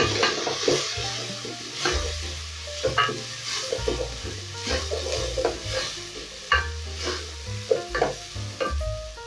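A wooden spoon stirring and scraping a thick curry base of onions, tomato paste and spices frying in a metal pot, with a steady sizzle and a scrape on the pot bottom every second or so.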